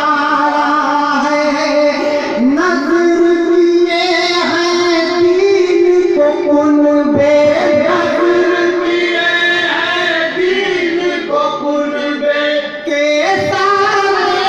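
A man singing a devotional kalam into a microphone, holding long notes that glide and waver between pitches, with a brief pause about thirteen seconds in.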